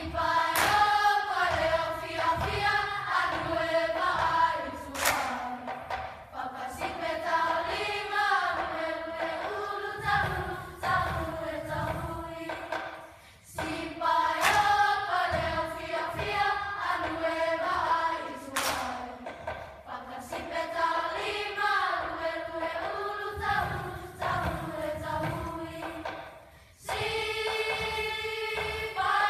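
A group of voices singing a song together, all on one melody, with a brief break between phrases about halfway through and a long held note near the end.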